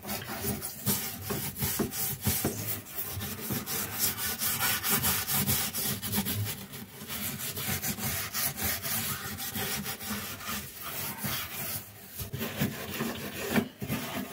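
Metal scouring pad scrubbing a wet, soapy stovetop in rapid back-and-forth strokes, a continuous scratchy rasping.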